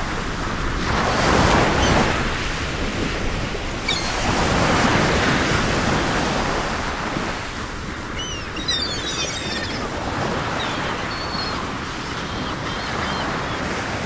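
Ocean waves breaking and washing on a shore, the rush rising and falling in slow swells a few seconds apart, with a few faint high chirps about two-thirds of the way through.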